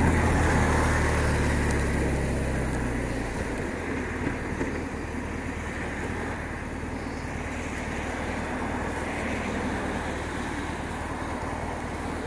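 BMW R1200RT's boxer-twin engine running under throttle, its note dropping away about three seconds in. What remains is a steady rush of wind and tyres on the wet road.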